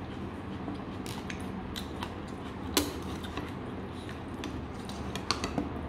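Metal spoon clinking against bowls in a few sharp separate clicks, the loudest about three seconds in and three quick ones near the end, over a steady low hum.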